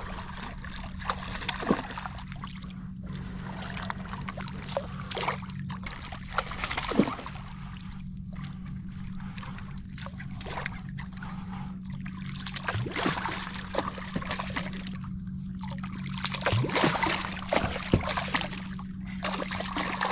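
Water splashing and sloshing around a kayak as a hooked fish thrashes at the surface, with short knocks and clicks scattered through and a steady low hum underneath.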